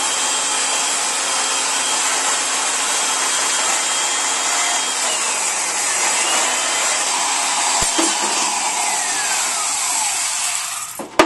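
Portable band saw running and cutting through a perforated steel muffler baffle tube clamped in a vise: a steady saw noise with a thin high whine, cut off suddenly by a click near the end.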